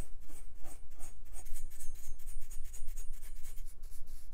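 Paintbrush bristles scrubbing caked dust out of the fins of a CPU heatsink, moving to the small cooling fan near the end. A fast, even run of brush strokes, about five a second.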